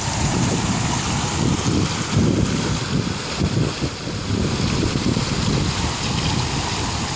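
South Yuba River water rushing over rocks: a steady wash of water noise with a fluttering low rumble underneath.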